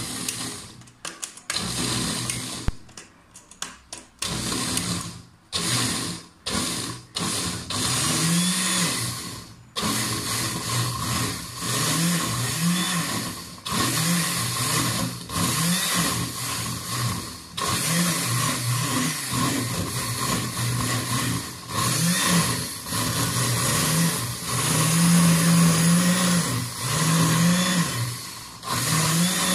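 Electric countertop blender with a glass jar grinding chilies into a paste. It is pulsed in short bursts for the first several seconds, then runs longer stretches, its motor pitch dipping and rising as the load changes.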